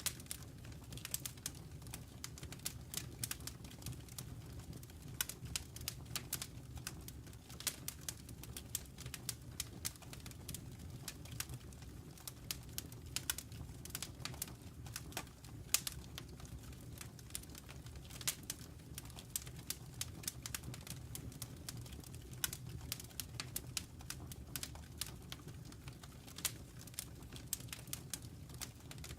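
Wood fire burning in a fireplace: irregular sharp crackles and pops, several a second, over a low steady rumble of the flames.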